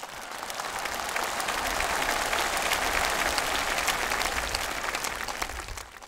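Audience applauding: a dense patter of many hands clapping that swells over the first couple of seconds and dies away near the end.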